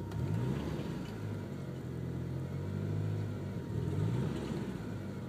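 Engine of a DSM car running, its pitch rising and falling unevenly several times, the sputtering and bogging of a lean misfire.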